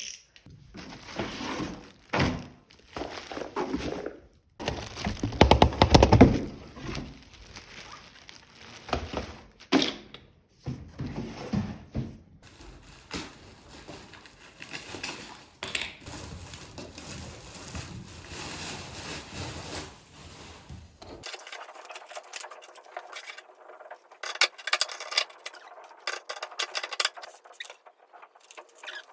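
Small objects being handled on a desk: irregular knocks, taps, clinks and rustles, loudest about six seconds in.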